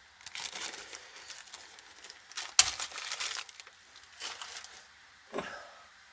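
Rustling and crinkling handling noises as parts are moved about, with a sharp click about two and a half seconds in and a lighter knock near the end.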